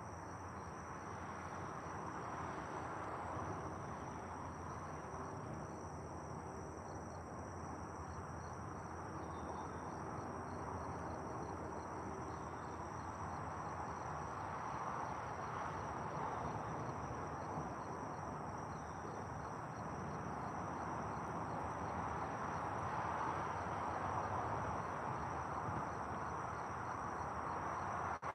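Steady evening chorus of insects: a constant high-pitched shrill over an even background hiss, swelling slightly.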